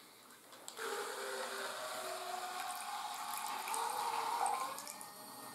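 Small electric water pump in a brick-built RC fire truck running, squirting water through its hose into a ceramic mug, the pitch of the stream rising as the mug fills. It fades out near the end as the truck's water tank runs empty.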